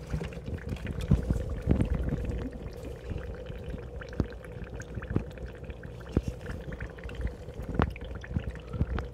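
Steady pouring and trickling of water in a paludarium's water section, with a faint steady hum. Over it, scattered sharp clicks and knocks as a gloved hand brushes through leaves and wood.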